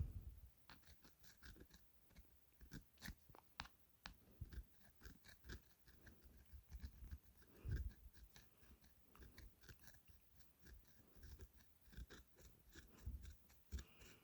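Faint, irregular scraping and clicking of a tool scratching at the rubbery coating of a Samsung Gusto 3 flip phone, with a few low handling knocks, the loudest about two thirds of the way through.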